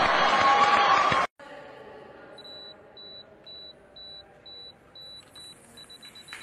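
A voice is cut off about a second in. Then comes faint, high electronic beeping: short beeps at one pitch, about two a second, turning quicker and shorter near the end.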